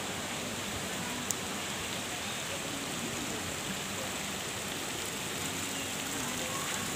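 Steady hiss and patter of falling water splashing, with one sharp click about a second in.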